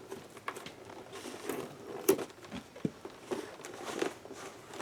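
Action-figure packaging being handled and opened: scattered light rustles and clicks of a cardboard box and plastic insert, with one sharper click about two seconds in.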